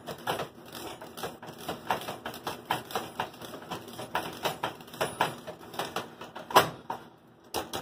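Wire whisk beating thick cornmeal polenta in a metal saucepan, clinking against the pot's sides about three times a second, with a short pause near the end. The polenta is being stirred on the burner as it thickens.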